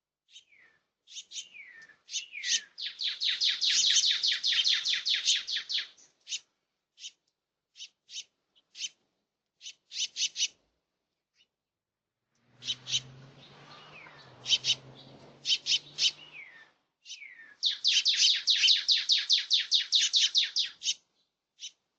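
A small songbird singing: scattered high chip notes and a few downward-slurred notes, then a fast, high trill of about seven notes a second lasting several seconds, given twice. In the middle a low hum with faint rushing noise comes in for about four seconds under the chips.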